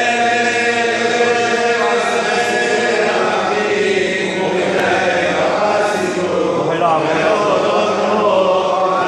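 Men's voices chanting Selihot penitential prayers together, with long held notes.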